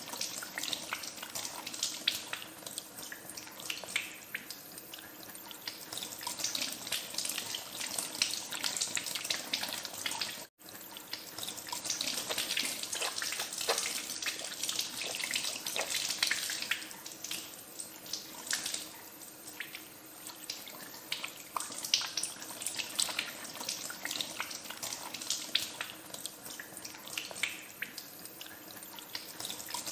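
Tap water running into a sink while hands are washed under the stream, with uneven splashing throughout. The sound cuts out for an instant about ten and a half seconds in.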